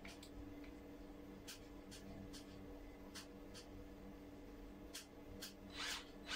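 Metal floating-shelf bracket being handled and positioned against a concrete wall: scattered light clicks and taps, then a louder scrape near the end. A faint steady hum runs underneath.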